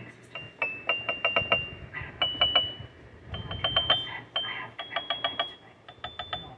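Kalimba's highest tines plucked one at a time, each note struck several times in quick succession, the pitch stepping up note by note from about E7 to G♯7. The notes sound only a few cents flat.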